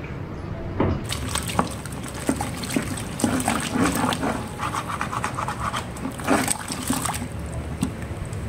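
Thick carbopol and silicone-oil gel being stirred by hand with a plastic rod in a plastic bucket: wet sloshing and churning with many small clicks, starting about a second in.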